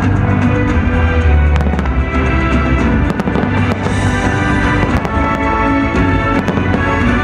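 Fireworks display: scattered sharp bangs and crackles from bursting shells, heard over loud music with a heavy bass.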